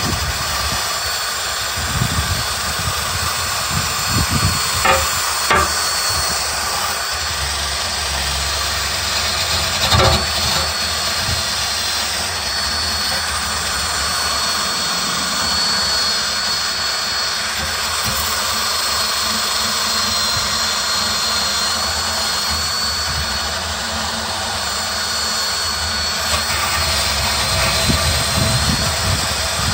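Electric drill spinning a wire brush against a steel truck frame: a steady, high motor whine over the hiss and scrape of the bristles, with a few brief knocks as the brush catches, cleaning rust and old coating off the frame.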